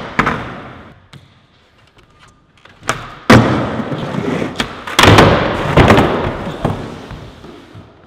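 Skateboard on a wooden mini ramp: a loud clack as the board comes down and its wheels roll across the plywood, then loud slams about five and six seconds in as board and skater hit the ramp in a fall, fading to a rumble.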